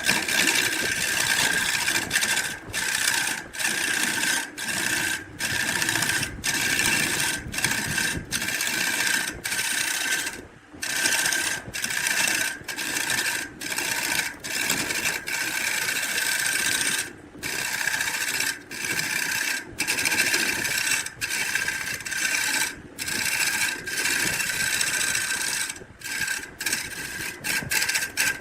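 A power tool working wood, its motor running with a steady whine under a rasping noise, broken by many short gaps as it is lifted off and set back on the wood.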